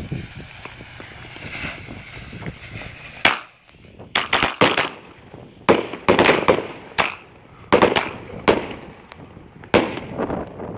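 Sammy's Best salute firecrackers going off one after another along a quick fuse: a few seconds of hiss, then about a dozen loud, sharp bangs at uneven spacing.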